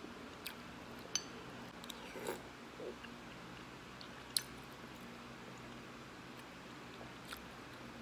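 Close-up eating sounds of someone chewing baso aci, tapioca meatballs in spicy broth, with a handful of sharp mouth clicks, the loudest about four seconds in, over a faint steady hum.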